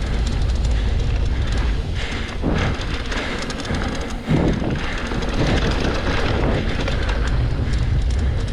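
Mountain bike ride heard on an action camera: wind rumbling on the microphone and the bike clattering over rough ground, with a sharp knock about four seconds in.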